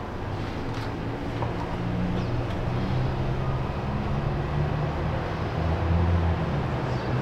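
A car's engine running with a steady low drone over road-like noise, swelling slightly about six seconds in.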